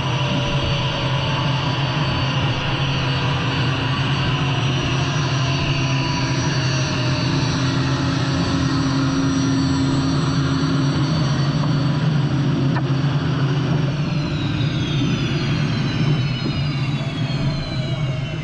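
Unlimited hydroplane's Lycoming T55 turbine engine running, recorded onboard: a steady low drone with a high whine, over rushing wind and water. In the last few seconds several high whine tones fall in pitch.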